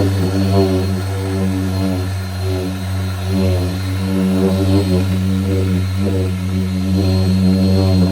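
Electric buffing polisher running steadily on car paint during paint correction, a loud hum whose pitch wavers slightly as the pad is worked across the panel.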